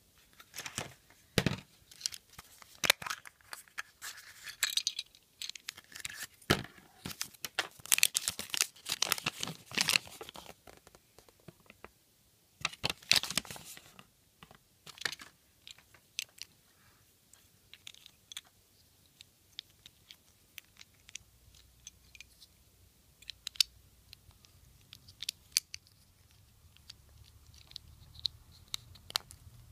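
Handling of a Kinder Surprise toy and its paper instruction leaflet: paper crinkling and rustling mixed with small clicks and taps of plastic pieces. It is busy and loud in the first half, then thins to scattered quiet clicks.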